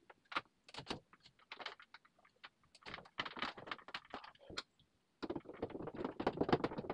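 Irregular clicks, taps and light scrapes of a wall cabinet and its hardware being handled against a wall, pausing briefly after about five seconds and then turning into a dense run of rattling clicks.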